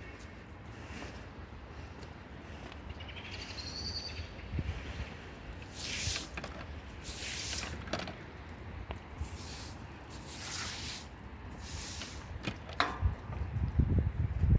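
Wind rumbling on the microphone, with several short hissing bursts about a second long in the second half.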